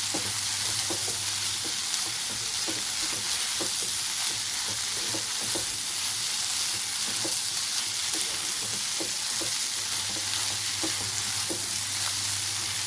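Chopped tomatoes, onion and capsicum frying in oil and butter in a pan over a high flame, a steady sizzle, with light clicks now and then as a spoon stirs the masala against the pan. The tomatoes are cooked soft and breaking down into a sauce.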